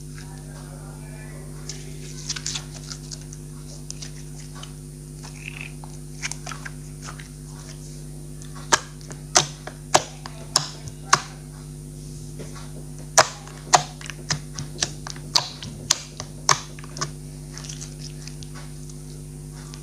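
Hands squeezing and kneading clear slime: soft wet crackles, then a run of a dozen or so sharp pops and clicks from air pockets bursting, about one every half second.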